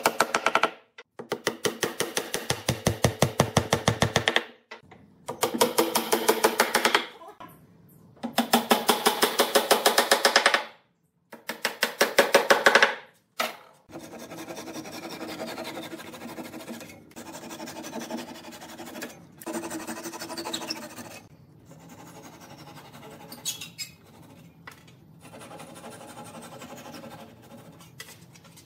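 Rapid, evenly repeated knocks in several bursts as wooden dowels are driven into a pine chair seat. About halfway through this gives way to quieter, steady strokes of a hand saw trimming the dowels flush with the seat.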